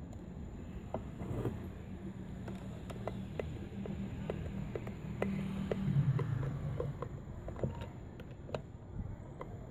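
Small scattered metal clicks and ticks of a nut driver turning screws home in a Truper water pump motor's housing during reassembly, over a low steady rumble that swells about six seconds in.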